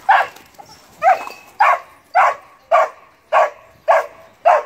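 Doberman barking over and over, about two barks a second, at a cat up a tree that will not come down.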